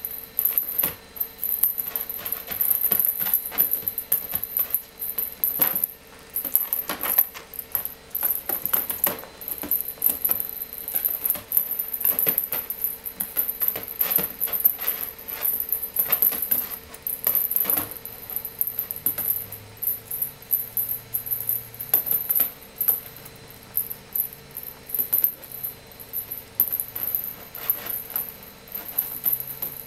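A small cat toy clattering and jingling in quick, irregular clicks as a kitten bats and pounces on it.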